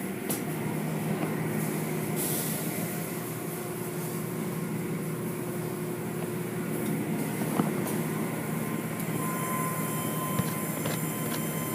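Automatic tunnel car wash running: hanging soft-cloth wash strips and brushes sweeping over a foam-covered car amid water spray, with a steady machine hum and a few light knocks.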